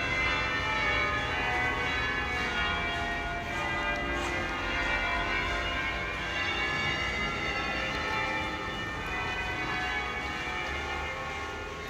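Church bells ringing, many overlapping tones hanging on steadily.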